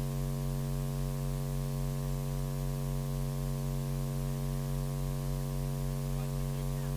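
Steady electrical mains hum with a buzz of evenly spaced overtones, unchanging throughout.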